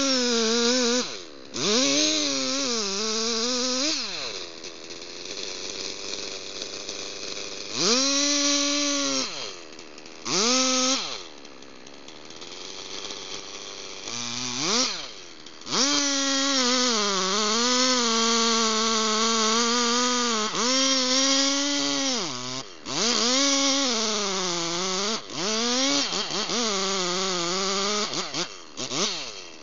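Two-stroke gas chainsaw cutting into a large tree trunk. It is revved to full throttle in runs of a few seconds, its pitch sagging and recovering as it bites, and drops back to idle between runs, most clearly about four seconds in and again around eleven seconds.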